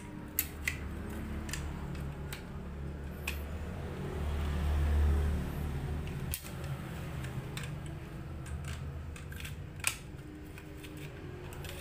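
Scattered light clicks and scrapes of a metal tool being twisted inside the brass barrel of an Estrella Parco foot pump, to work loose the part held inside, over a steady low hum.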